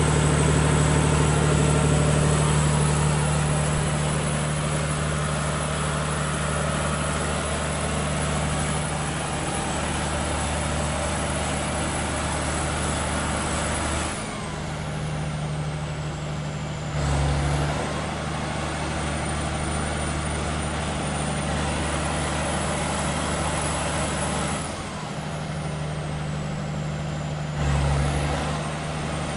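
Volvo Penta diesel generator set running steadily. Its high whine drops in pitch and climbs back twice, about halfway through and again near the end, each time with a brief surge in loudness.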